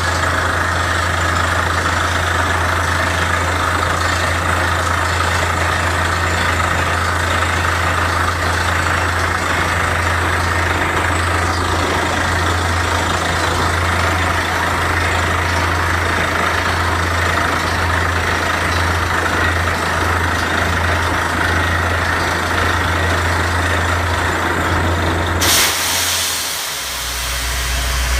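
Borewell drilling rig's engine running steadily. Near the end a sudden hiss starts, and a moment later the engine note drops lower.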